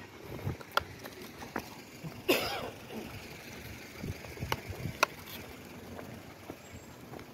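Scattered light clicks and steps of a husky being walked on a leash over pavement, with one short, louder cough-like burst a little over two seconds in.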